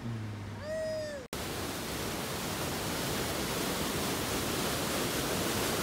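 Small waterfall: white water rushing over rocks in a loud, steady roar that starts abruptly about a second in. Just before it, a brief voice.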